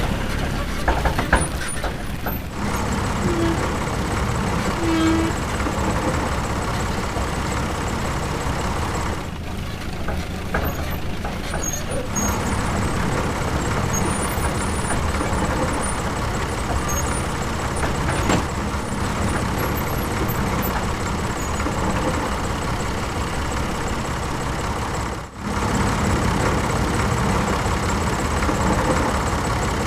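Heavy vehicle engine running steadily, like a tractor or truck, with two short tones a few seconds in and a brief dropout about 25 seconds in.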